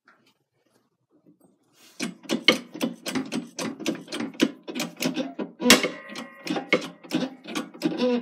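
Bench press forcing a steel cross pin out of an RC car's dog-bone drive shaft. A rapid run of sharp metallic clicks and creaks starts about two seconds in, with one louder crack past the middle followed by a brief ring as the pin shifts in the shaft.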